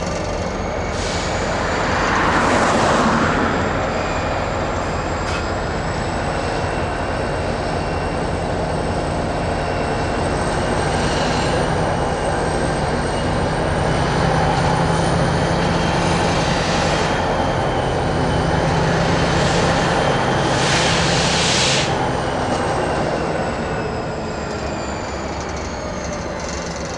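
Diesel freight locomotive working under load as it moves the derailed train in a re-railing attempt, its engine running steadily while wheels and flanges squeal in long, slowly wavering high tones. The attempt fails to get the car back on the rails.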